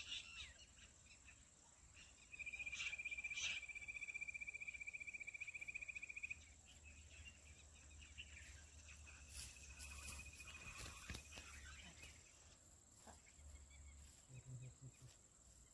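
Insects trilling in a field: one steady, rapidly pulsed trill at a single pitch lasts about four seconds from about two seconds in, and a fainter one comes around ten seconds, over a continuous thin high insect whine.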